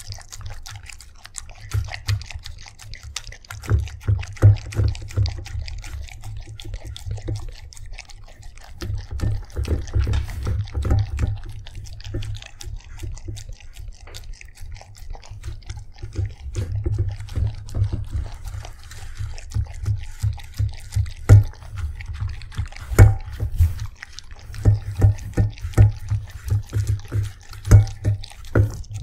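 Dog lapping and slurping wet food from a stainless steel bowl, close to the microphone: a quick, uneven run of wet mouth clicks and smacks, with a few sharper, louder clicks in the second half.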